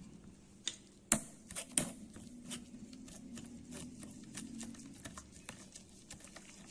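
Light, irregular clicks and taps of a spoon against a strainer as blended lemon pulp is worked through it, with a few sharper knocks early on.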